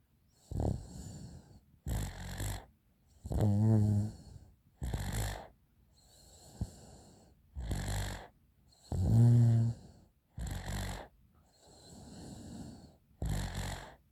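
Sleeping person's noisy, abnormal breathing: a run of rasping breaths, twice with a louder pitched snore, once near the start and once past the middle.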